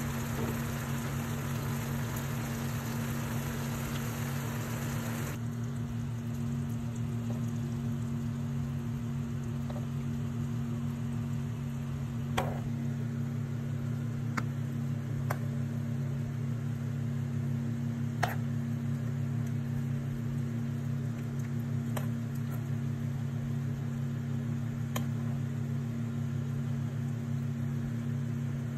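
A steady low machine hum, like a fan or motor, runs throughout. For the first five seconds it lies under the bubbling of squid and sauce boiling in a pan, which then stops abruptly. Later come about six sharp clicks spaced a few seconds apart.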